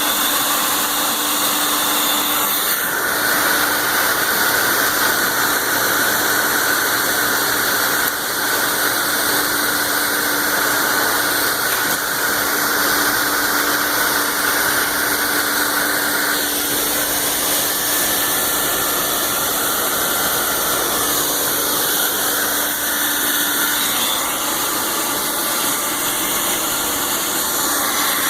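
Tennant V-WD-15 wet/dry vacuum running: a steady, loud motor whine with a rush of air. The whine wavers in pitch for a while past the halfway point.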